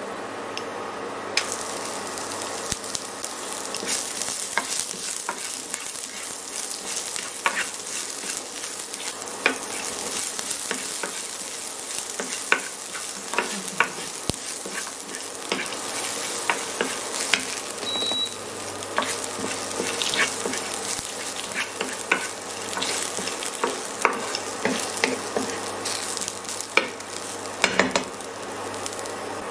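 Chopped onion frying in hot oil with lentils and dried red chillies in a nonstick pan, sizzling steadily while a wooden spatula stirs and scrapes, with scattered taps and clicks. The sizzle jumps up about a second in, as the onion goes into the oil.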